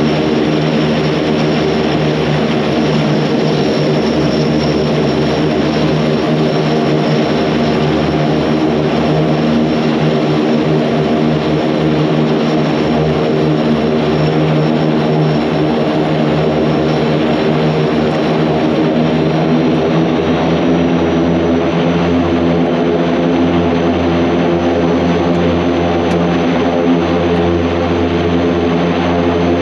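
Antonov An-26's Ivchenko AI-24 turboprop engines heard from inside the cockpit while taxiing: a steady propeller drone with a thin high turbine whine, which edges up in pitch about two-thirds of the way through.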